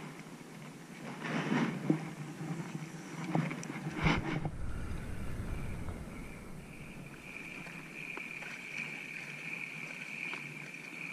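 Knocks and rustling of a spinning rod and reel being handled and cast, with a sharp knock and a burst of wind on the microphone about four seconds in. From about six seconds a steady high-pitched insect buzz.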